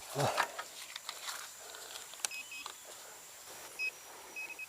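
Metal detector giving short, thin electronic beeps: a few single beeps, then a quick repeating run of beeps near the end as it sounds off on a buried metal target. A short rustle of handling comes at the start.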